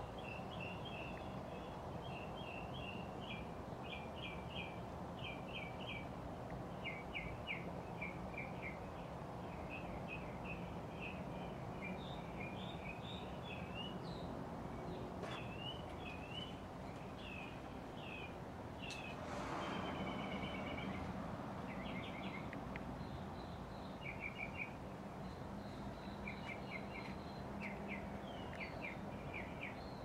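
S.M.C. Laguna KB36 ceiling fan running with a steady low hum and rush of air, while small birds chirp repeatedly over it. A brief louder rush of noise comes about two-thirds of the way through.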